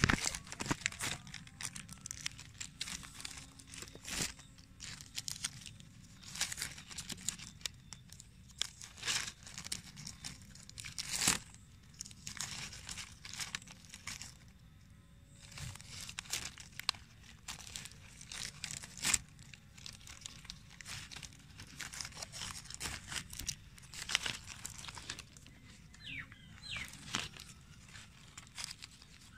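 Thin plastic grafting strip crinkling and crackling in the fingers as it is stretched and wound tightly around a mango graft union, in irregular bursts of crackles.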